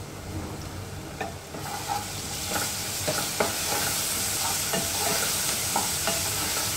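Onions frying in oil in an aluminium pot: the sizzle grows louder about a second and a half in, as ginger-garlic paste is stirred into the hot oil. A wooden spatula scrapes and knocks against the pot with short clicks.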